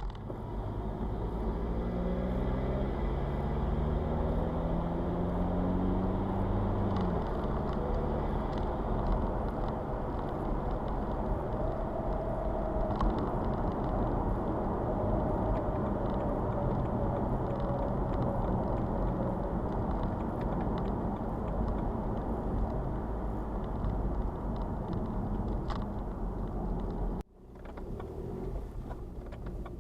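BMW 116d's 2.0-litre N47 diesel engine and road noise while driving: the engine note climbs for the first several seconds as the car accelerates, then settles into a steady rumble. About 27 seconds in the sound breaks off sharply and resumes as a quieter rumble.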